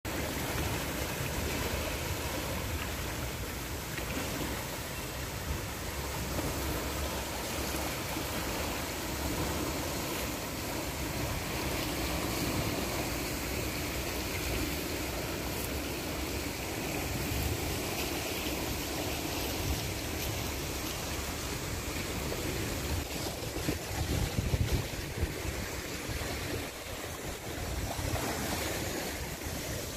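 Water rushing steadily through a dam's concrete outlet channel, with wind buffeting the microphone. A few stronger gusts come toward the end.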